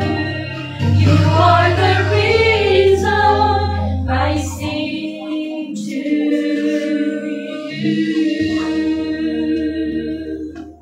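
Three women singing a religious song together into a microphone, fading out at the end.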